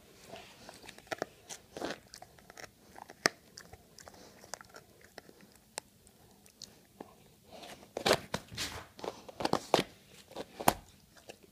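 A dog chewing and biting a football: irregular crunches and clicks of teeth on the ball, coming thicker and louder in the last few seconds.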